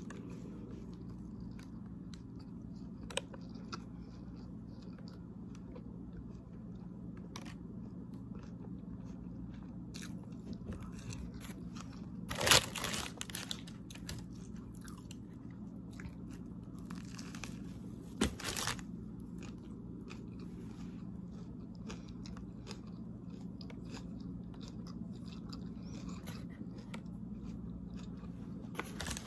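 A person biting into and chewing a lettuce-filled sandwich close to the microphone, with scattered short crackles of mouth and paper wrapper, the loudest a little before the middle. A steady low hum runs underneath.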